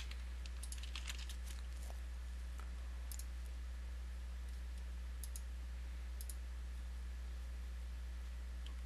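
A few sharp computer mouse clicks, several close together about a second in and single ones later, over a steady low electrical hum.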